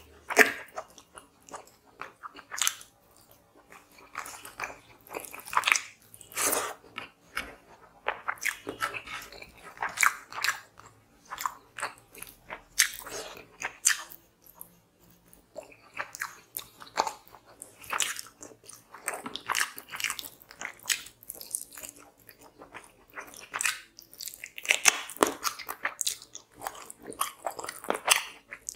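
Close-miked chewing and mouth noises of a man eating chicken curry and rice by hand, with many short, irregular wet smacks and clicks.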